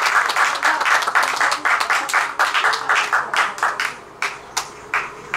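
Audience applause: many people clapping densely at first, thinning out after about four seconds to a few scattered single claps.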